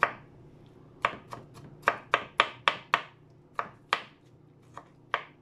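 Kitchen knife chopping peeled tomatoes on a wooden cutting board: about a dozen sharp knocks of the blade on the board, in quick runs with short pauses between them.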